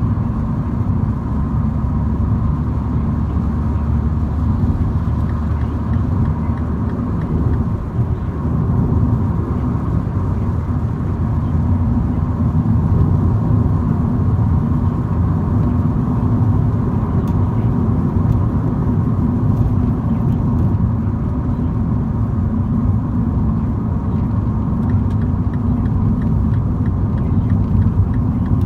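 MINI car driving: a steady low rumble of engine and road noise.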